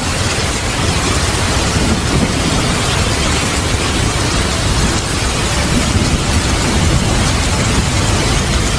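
Heavy rain falling steadily, with a continuous low rumble of thunder underneath and no sharp thunderclap.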